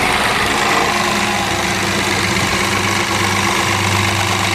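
Citroën C4 Lounge's 1.6 THP turbocharged four-cylinder engine running just after start-up, with a rattling noise over the idle. The mechanic traces this start-up noise to a stretched, slackened timing chain, a chronic fault of the THP engine.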